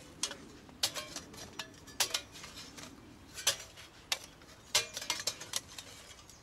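A small folding hobo stove made of thin 0.3 mm spring-steel panels, the Bushbox Ultralight, clinking and rattling as it is tossed onto sandy ground and picked up again, over and over, to show it holds together. About a dozen sharp, irregularly spaced metallic clinks.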